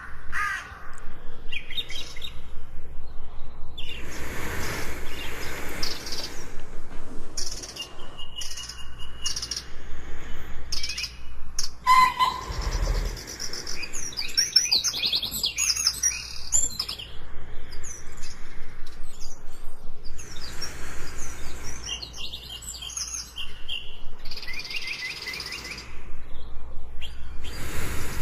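Jungle bird chorus: several birds chirping, trilling and calling in overlapping short phrases, densest about halfway through, over a faint steady background hiss.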